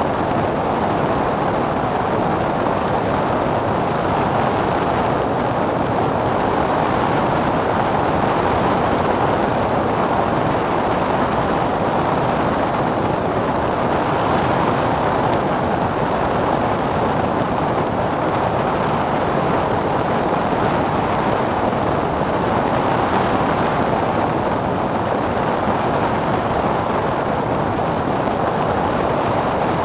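Steady, unchanging drone of a Cessna 177's engine and propeller heard inside the cabin in flight.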